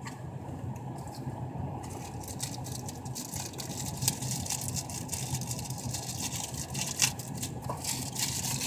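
Plastic accessory packaging crinkling and crackling as it is handled and opened, starting about two seconds in, with a steady low hum underneath.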